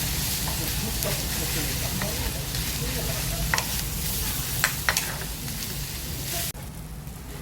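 Food sizzling in a frying pan, with a few sharp clicks of a utensil against the pan. The sizzle cuts off abruptly near the end.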